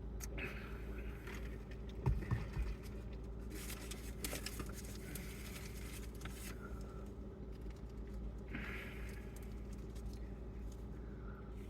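Eating and handling noises: a couple of sharp knocks about two seconds in, then a few seconds of rustling, over a steady low electrical hum.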